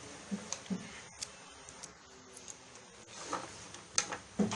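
A 3×3 Rubik's cube being turned by hand: a few scattered light plastic clicks as its layers are twisted.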